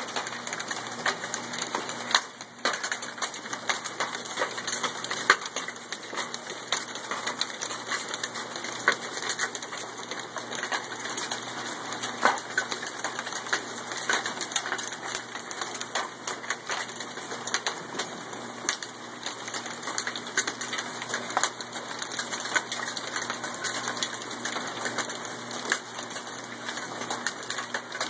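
Small hailstones and rain pelting a wooden deck: a dense, irregular clatter of sharp ticks over a steady hiss of rain.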